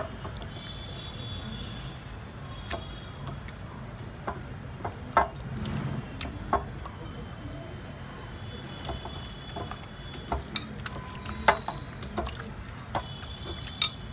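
Hands squishing raw chicken breast pieces through an oily spice marinade in a glass bowl: wet squelching with scattered light taps and clicks.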